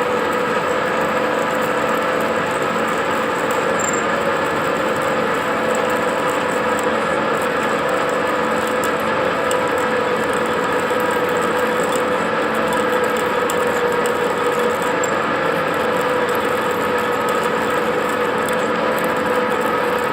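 Metal lathe running steadily with the crankshaft turning in it while an 8 mm drill bores into the shaft's end, a constant machine drone with a few steady whining tones throughout.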